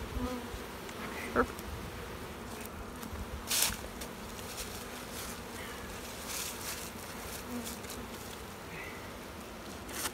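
Honeybees buzzing steadily around an open hive and an emptied package box, a freshly installed package of bees. A few short knocks of handling break in, the loudest about three and a half seconds in.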